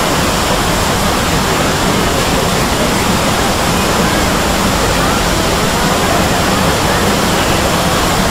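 Soundtracks of hundreds of videos played together, mixed into one dense, steady wash of noise like rushing water, with faint traces of voices.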